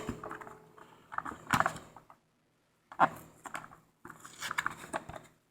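Small cardboard box being torn open by hand: short bouts of ripping and crinkling cardboard, three of them with brief pauses between.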